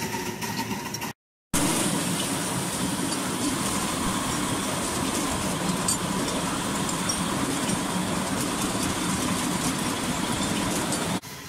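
Small vertical-boiler steam locomotive hauling a miniature-railway train, heard from the riding car just behind it: a steady running noise of the engine and the wheels on the rails. The sound cuts out for a moment about a second in and drops near the end.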